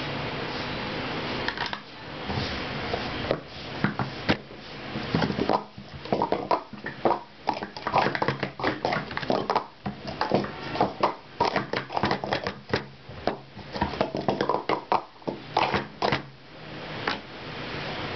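Plastic Speed Stacks sport-stacking cups clattering as they are rapidly stacked up and down on a stacking mat: a dense run of quick clacks from about three seconds in until near the end, over a steady background hiss.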